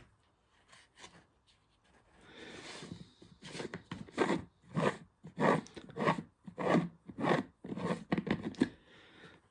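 Plastic screw lid being twisted off a large glass jar: the threads scrape and creak in a run of short strokes, about two a second, each one a turn of the hand, starting about two seconds in.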